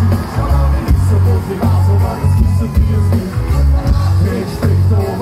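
Live band music played loud over a concert PA: a heavy, pulsing bass beat with a sung vocal line above it.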